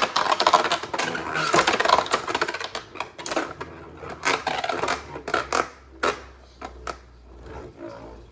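Beyblade spinning tops clattering and colliding in a plastic stadium: a dense rattle of hits at first, thinning to scattered sharp clicks, with a low steady hum near the end.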